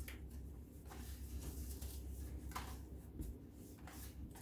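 Faint, scattered rustles and light taps of a paper envelope being handled, over a low steady hum.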